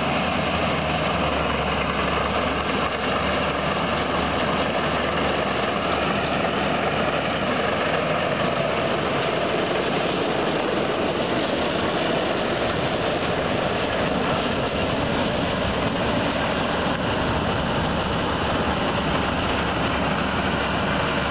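Ford Commander 6000 tractor's six-cylinder engine running steadily.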